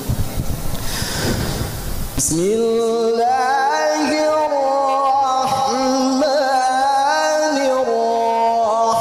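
A male Quran reciter chants a melodic tilawah through a microphone. After a noisy gap of about two seconds, he holds long, ornamented notes that waver and glide between pitches.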